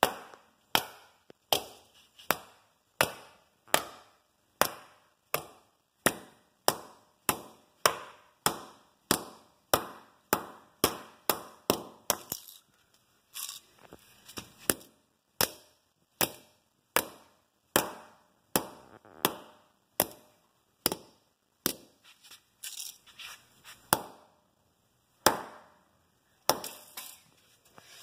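Repeated hard blows of a hand tool on a fidget spinner lying on a concrete floor, smashing it apart. The blows are sharp and evenly spaced, about three every two seconds, with a short pause about halfway and more uneven strikes near the end.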